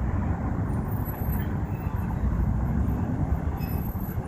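Steady low rumble of motor-vehicle engine and road noise.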